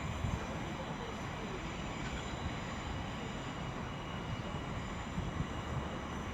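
Steady rumbling noise of a train at a station platform, with a faint high whine.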